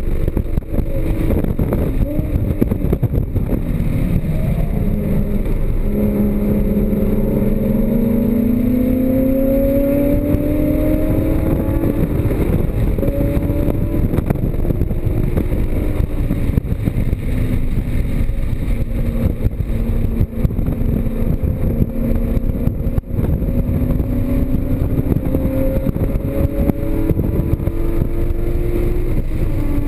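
Porsche Cayman GTS's flat-six engine at full throttle on a racetrack lap, rising in pitch as it pulls up through the revs, dropping, then climbing again, with steady road and wind noise underneath.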